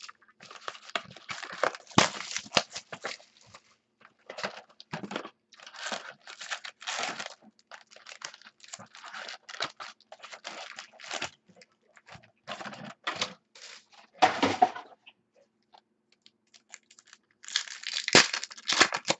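Tearing and crinkling of wrapping and cardboard as a box of 2015 Chrome baseball card packs is torn open and the packs are handled. It comes in irregular bursts, with a lull a few seconds before the end.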